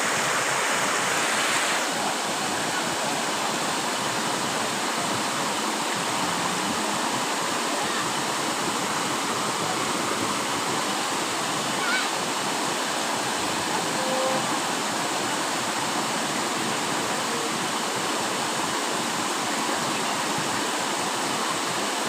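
Waterfall pouring into a pool with a steady rush of water, slightly stronger in the first couple of seconds.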